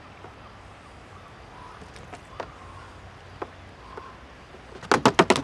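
Clicks and knocks from handling a wine jug and fitting its lid and airlock: a few light clicks, then a quick run of about six sharp clacks near the end.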